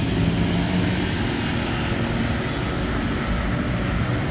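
Steady low engine drone with a constant hum and no sudden changes.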